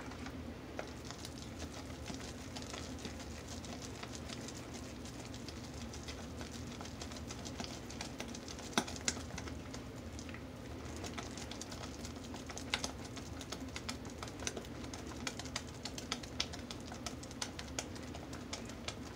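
Thick hot process soap paste being stirred and scraped by hand in a plastic bowl: faint soft clicks and taps, coming more often in the second half, over a low steady hum.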